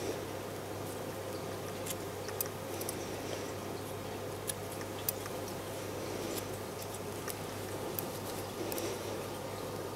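Grooming scissors snipping through matted golden retriever fur, cutting out the mats: scattered small crisp snips, a few seconds apart, over a steady low hum.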